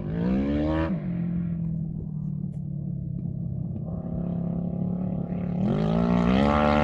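Quad bike with a Yamaha YZF1000R Thunderace inline-four engine revving hard in the first second, then falling back to a steady drone. Near the end it revs up again in two steps to its loudest.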